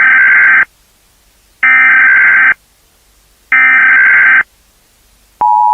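Emergency Alert System SAME header: three harsh electronic data bursts, each just under a second long and about a second apart. Near the end, the steady two-tone EAS attention signal begins.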